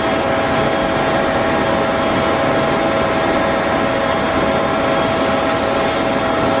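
CNC metal-spinning lathe running: a loud, steady mechanical noise with a constant hum tone in it.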